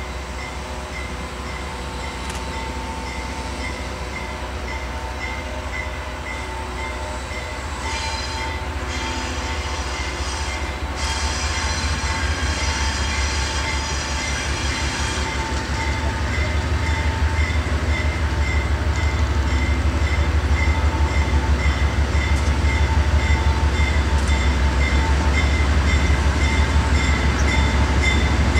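GE C39-8 diesel-electric locomotive approaching, its 16-cylinder diesel's low drone growing steadily louder. Its K5LA air horn sounds a short blast about eight seconds in and a longer one from about eleven to fifteen seconds. A bell rings steadily the whole time.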